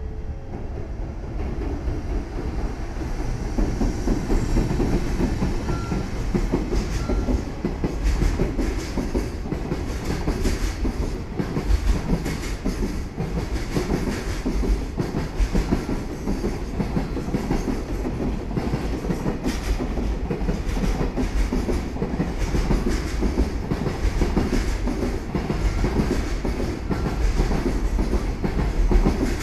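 Container freight train hauled by an EF210 electric locomotive passing close by, its wagon wheels clattering in a steady rhythm over the rail joints under a deep rumble. The sound builds over the first few seconds as the train draws alongside, then holds steady as the wagons run past.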